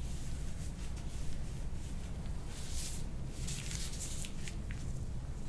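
Soft rustling and handling noises, a couple of brief bursts near the middle, over a steady low room hum.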